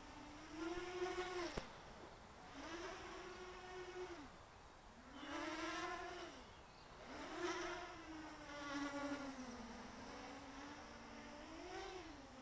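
Morphite 180 mini quadcopter's motors and propellers whining in flight, the buzz rising and falling in pitch and loudness in about five swells as the throttle is worked through flips and rolls.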